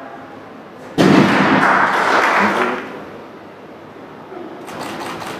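A loaded barbell with bumper plates dropped onto the lifting platform after a snatch, landing with a sudden thud about a second in. A couple of seconds of clapping and cheering follow, then fade.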